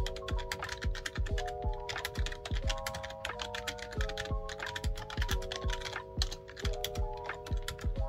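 Rapid continuous typing on a backlit computer keyboard: a dense stream of key clicks. Background music with held chords and a steady low beat plays under it.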